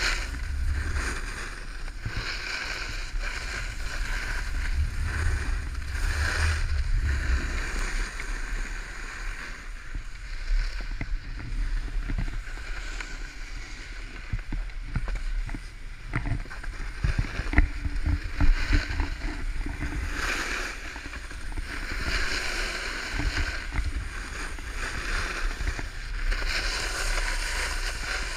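Wind buffeting an action camera's microphone while riding downhill, with the hiss and scrape of edges sliding over hard-packed snow that swells and fades through turns. A few sharp knocks come about two-thirds of the way through.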